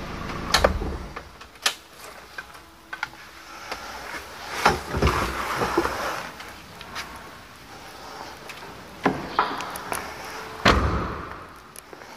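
Car door being opened and shut, with several separate knocks and thumps and a heavy low thump near the end, and some rustling in between.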